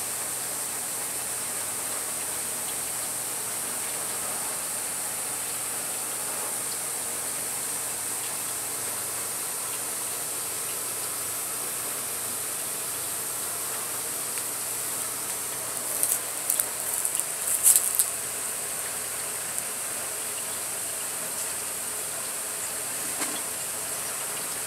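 Steady high-pitched outdoor hiss, with a brief cluster of sharp crackles and clicks about two-thirds of the way through.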